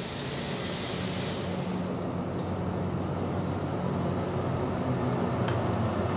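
Alsthom diesel-electric locomotive approaching, its engine drone growing steadily louder as it comes in.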